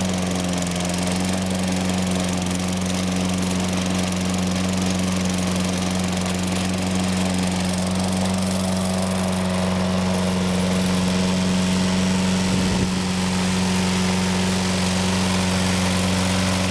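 Toro Personal Pace lawn mower's Tecumseh 6.5 single-cylinder engine running steadily at working speed, its freshly cleaned carburetor keeping it running smoothly. A brief low knock sounds near the end.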